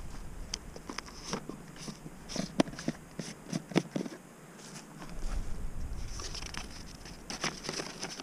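A plastic jar lid being handled and opened, with a run of small clicks and taps, then paper rustling as a folded map is drawn out of the jar.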